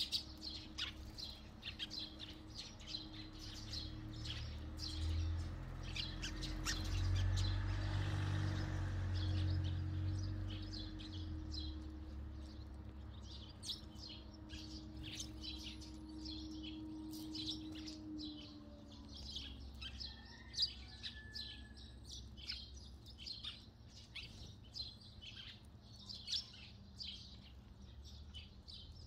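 Eurasian tree sparrows chirping in many short, quick chirps. Partway in, a low rumble swells, becomes the loudest sound for a few seconds, then fades.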